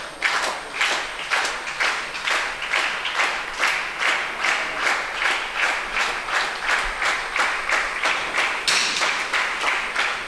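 Audience clapping in unison: a steady beat of about two to three claps a second. The sound grows brighter and fuller near the end.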